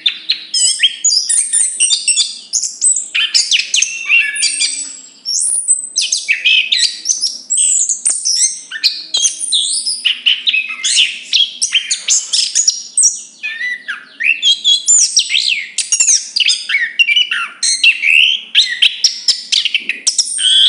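Chestnut-capped thrush singing a loud, unbroken, varied song of rapid high whistles, slurred glides and chattering notes.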